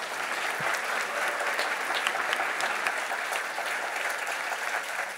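Large audience applauding steadily, a dense patter of many hands, dying down near the end.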